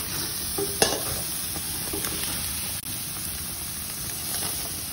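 Pork chops sizzling steadily on a hot barbecue grill over open flame, with one sharp click about a second in.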